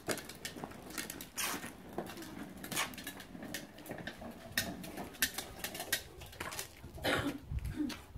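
Small plastic toy wheelbarrow rattling and clicking irregularly as a toddler pushes it over a concrete path, with the child's shuffling footsteps.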